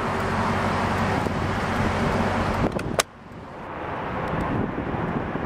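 Wind rushing across the microphone over a low steady hum. About three seconds in there is a sharp click, the noise drops off abruptly, and the wind rush then builds back up.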